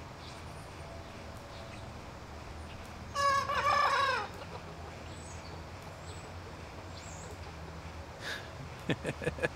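A young rooster crowing once: a short crow of about a second that drops in pitch at the end, from a cockerel still learning to crow.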